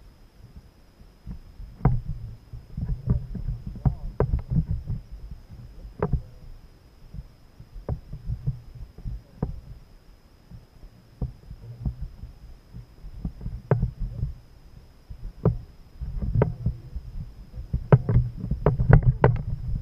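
Irregular knocks, clicks and low thumps of a plastic fishing kayak being handled while a fish is reeled in and lifted aboard, heaviest in the last few seconds.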